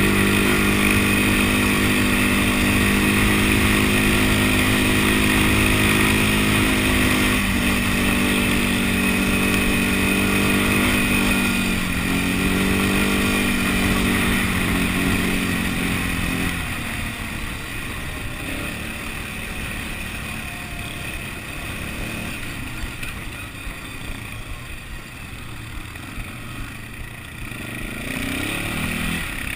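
Massey Ferguson 4WD quad bike engine running at a steady pace as it is ridden, dipping slightly in pitch twice. A little past halfway the engine note drops away and the run goes on more quietly. Near the end the revs rise again.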